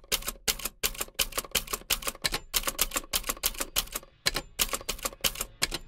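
Typewriter keys striking in a quick, slightly uneven run, about four to five strokes a second, with a short pause about four seconds in.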